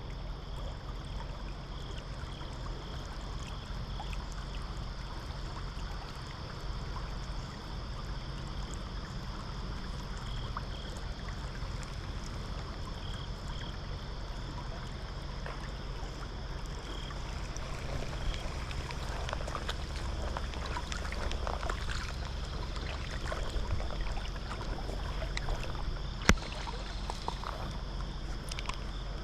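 Steady outdoor ambience by the water: a low rumble and hiss, with a few faint high chirps in the first seconds, some scratchy rustling a little past the middle and one sharp click near the end.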